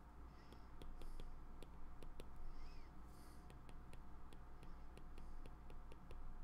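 Stylus tip tapping and stroking on an iPad's glass screen while handwriting: a string of faint, irregular clicks with a few soft scratchy strokes between them.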